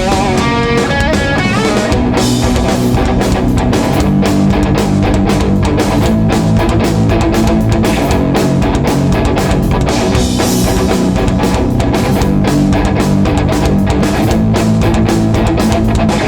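Live oi/punk band playing an instrumental passage: distorted electric guitars, bass and a fast, driving drum beat. A single-note guitar melody is heard for about the first second, then the band plays full chords.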